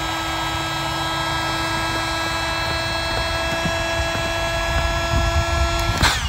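Ozito powered air inflator running with a steady motorised hum and rush of air, filling the inflatable kayak's second air chamber; it stops abruptly near the end.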